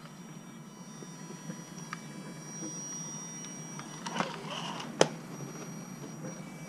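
Gmade Gom RC rock crawler's electric drive whining as it crawls over rock, with scraping and knocking from tyres and chassis on the stone. A single sharp knock about five seconds in.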